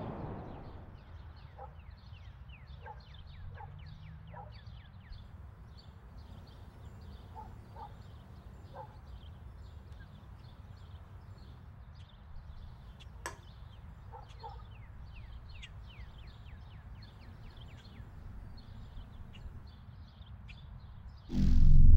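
Small birds chirping repeatedly, in short falling chirps, over a low steady rumble, with one sharp click about thirteen seconds in. Music with a gong-like tone comes in just before the end.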